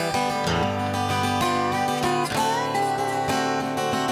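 Resonator guitar played with a glass slide over finger-picked strings, with notes sliding up into pitch a couple of times.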